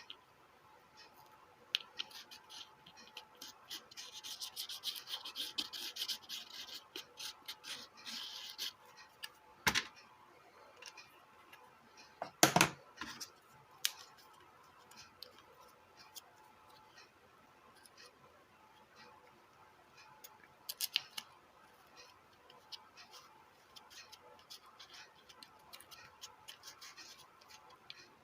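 Small bench-work handling noises on the speaker's parts and wires: a few seconds of rubbing and scraping, two sharp knocks, and scattered light clicks.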